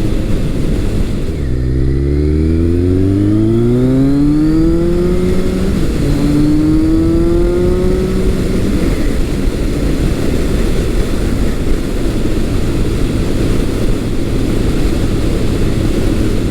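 Kawasaki ZRX1200R inline-four through an ART Pro Series II slip-on exhaust, accelerating hard with a deep tone. The pitch climbs through one gear, drops at an upshift about six seconds in and climbs again, then the engine settles into steady riding under a rush of noise.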